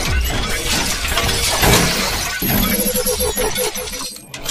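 Stock video-intro sound effects: a loud, dense crashing and shattering noise layered over music, with a wavering pitched sound coming in about halfway through.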